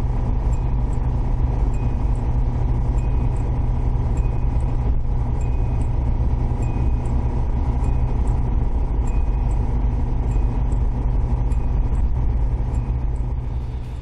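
Toyota AE86 at expressway speed: a steady engine and road rumble. Over it, the kinkon speed-warning chime rings again and again at an even pace, the sign that the car is over about 105 km/h. The sound fades near the end.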